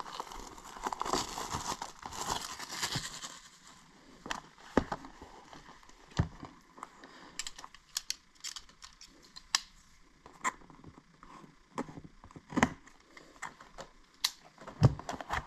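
Plastic shrink-wrap being torn and crinkled off a cardboard trading-card box for the first few seconds, then scattered light taps and clicks as the cardboard box is handled and set down.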